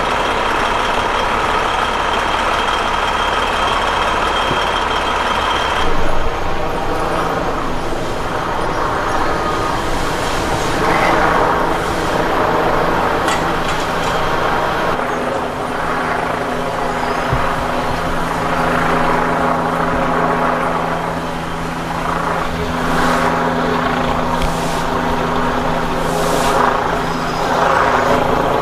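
Steady drone of engine noise with a rough, swelling and fading rumble over it, from heavy vehicles or a helicopter.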